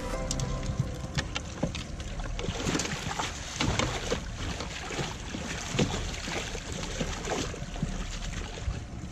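A salmon thrashing in a landing net held at a boat's side, with irregular splashes of water that come thickest from about two and a half to seven and a half seconds in.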